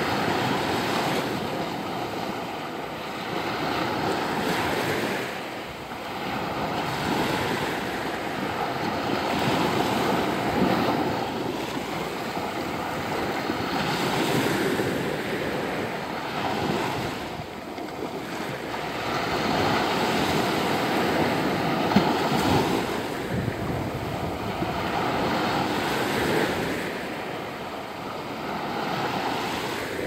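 Small sea waves breaking and washing in at the shoreline, the surf swelling and easing every few seconds. There is a single brief click about two-thirds of the way through.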